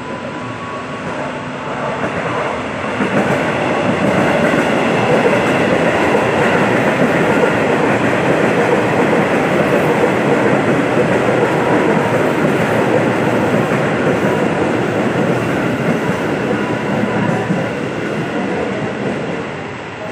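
KRL Commuter Line electric multiple-unit train running past close by on the rails. The sound builds over the first few seconds, stays loud while the carriages go by, and fades near the end.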